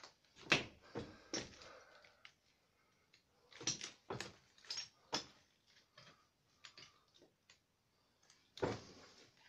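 Footsteps on a debris-strewn crypt floor, in two short runs of steps about half a second apart, with a longer scrape near the end.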